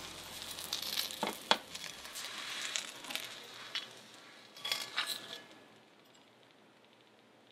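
A fried egg sizzling in oil in a de Buyer Mineral B carbon steel crepe pan, with scattered pops and crackles. The sizzle dies away about five and a half seconds in.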